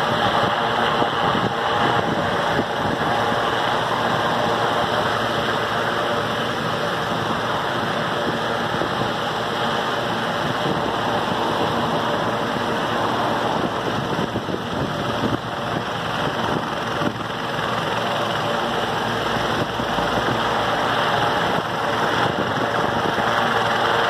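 Sikorsky S-76 helicopter's twin turbine engines running steadily with the main rotor turning while it stands on the ground, ahead of lift-off.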